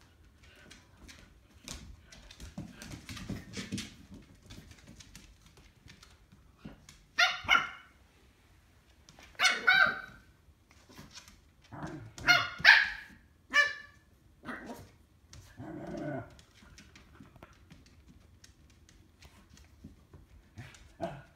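Dogs barking in play: sharp barks, several coming in quick pairs, bunched in the middle stretch, with one more near the end.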